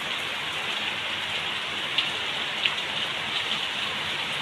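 Heavy rain falling, a steady dense hiss with a couple of louder single drop hits around the middle.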